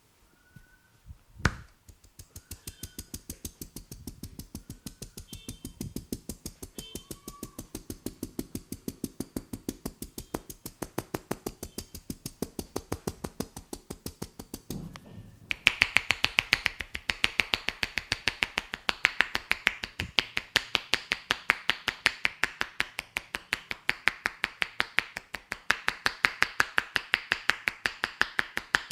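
Rapid, even hand strikes of an Indian head massage, several a second, like fingers snapping. They get louder and sharper about halfway through. A single sharp knock comes about a second and a half in.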